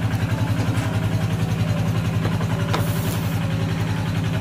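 A small engine idling with a steady, evenly pulsing low hum. A single sharp click with a brief hiss comes about three seconds in.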